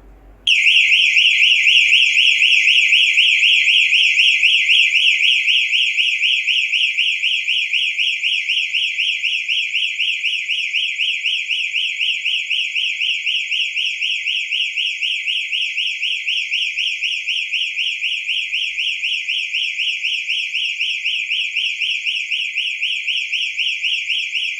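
ThinkX XGen GSM security system's electronic alarm siren sounding its intrusion alert, a loud, high, rapidly warbling tone that switches on about half a second in and keeps going without a break.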